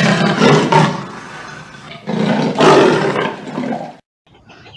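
A big cat roaring twice, each roar about a second and a half long, the second starting about two seconds in.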